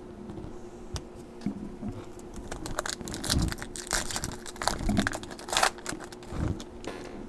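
Foil wrapper of a trading-card pack crinkling and tearing as the pack is opened, with the cards rustling and clicking as they are handled in irregular bursts.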